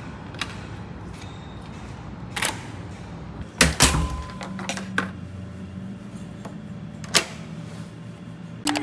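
Scattered sharp clicks and knocks over a steady low hum, the loudest a close pair about three and a half seconds in and another single knock near the end.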